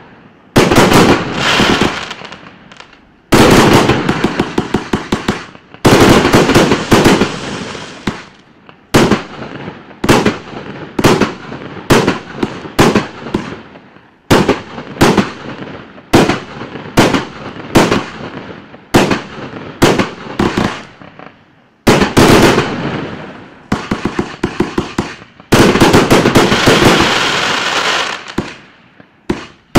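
Klasek Pyrotechnology 2020 128-shot, 30 mm calibre firework cake firing its shots in sequence: a string of sharp bangs, mostly about one a second, with several bursts trailing off into dense crackling.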